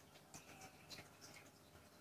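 Near silence with faint, scattered light ticks, a few a second, from a replica Casio G-Shock watch held with a button pressed down to move its hands.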